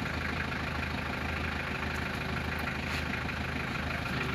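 A motor vehicle's engine idling steadily, a low even hum.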